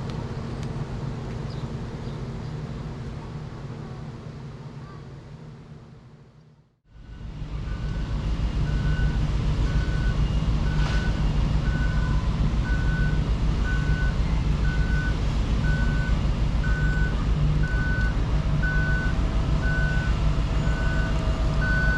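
A vehicle engine running, fading out about a third of the way in. It fades back in as a forklift's engine running under a reversing alarm beeping steadily, about one beep a second.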